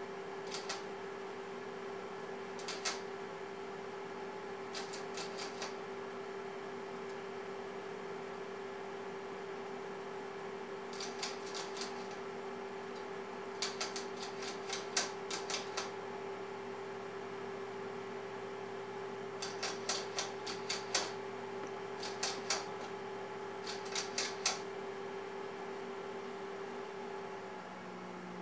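Guinea pig nibbling a cat's fur with its teeth: short bursts of rapid small clicks every few seconds, over a steady electrical hum.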